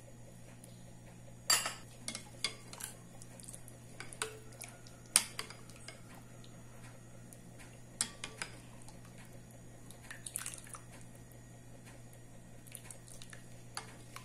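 Utensils clinking and scraping against a cooking pot as a thin tomato curry is stirred. There are scattered sharp clinks, the loudest about a second and a half in and about five seconds in, over a faint steady low hum.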